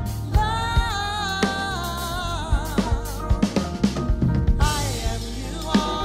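Music: a song with a solo singing voice over a drum kit beat, the voice holding and bending long notes in the first couple of seconds.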